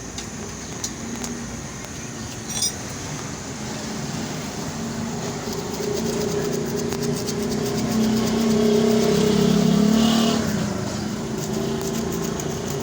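A motor vehicle's engine passing by, its hum swelling to a peak about nine seconds in and then fading. There is a short click about two and a half seconds in.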